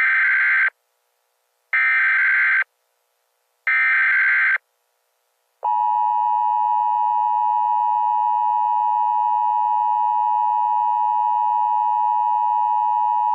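Emergency Alert System tones: three short screeching bursts of SAME digital header data, each just under a second, then the steady two-tone EAS attention signal held for about eight seconds. Together they announce a new alert.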